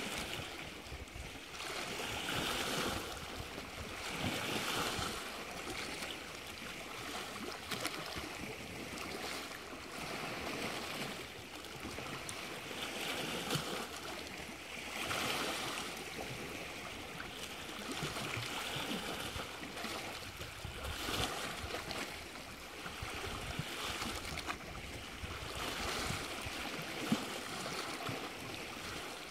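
Small lake waves lapping and splashing, the water noise swelling and fading every few seconds.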